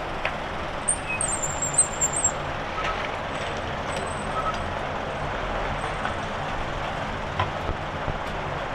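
Steady city street noise from passing traffic, with a few scattered clicks and a brief high squeal about a second in.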